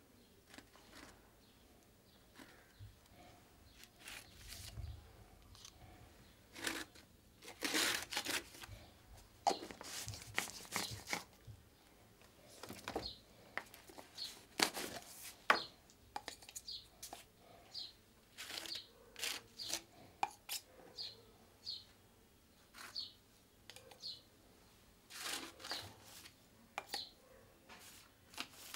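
Short scratchy strokes of a paintbrush scraping paint onto rough, textured paper, several in quick clusters. A small bird chirps about once a second through the second half.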